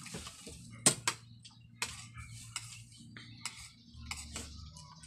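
Spoons and forks clinking and scraping against plates during a meal, a scatter of short sharp clinks with the loudest about a second in.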